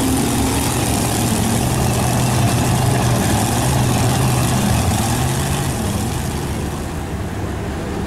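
A four-wheel-drive's engine running steadily while driving through soft sand, under a constant hiss, easing off a little near the end.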